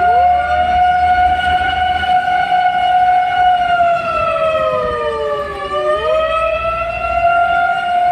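Fire engine siren sounding while the truck responds to an emergency. One steady wailing tone sags in pitch and climbs back about six seconds in, while a second siren tone slides down and then swoops sharply back up twice, over a low engine rumble.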